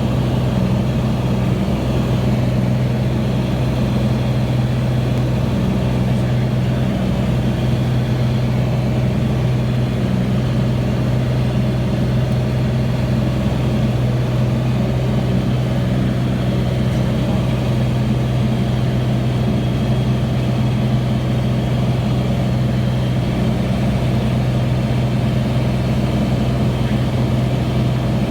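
An engine running steadily at idle: a constant low hum that holds the same pitch throughout.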